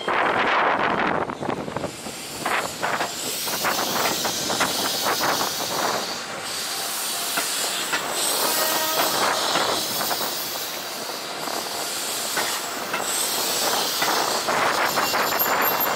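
Keihan 3000-series electric train rolling past close by, its wheels clacking over the rail joints under a steady rushing noise. A high steady tone joins about a second before the end.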